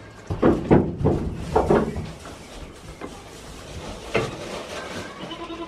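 Goats bleating: a quick run of three calls in the first two seconds, another at about four seconds and a longer held bleat near the end, over a steady hiss of rain.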